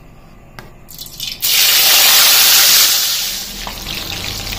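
Pork embutido logs going into hot cooking oil in a metal pan: a sudden loud sizzle starts about a second and a half in, then eases into a steady frying sizzle.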